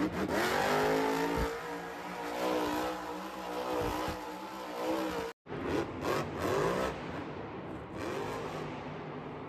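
Monster truck supercharged V8 engines revving hard, the pitch climbing and falling again and again. The sound cuts out for a moment about five and a half seconds in, then the revving resumes.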